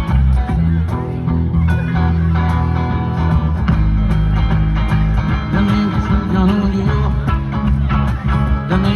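Band music led by plucked guitars over a steady, strong bass line, in an instrumental stretch with no clear singing.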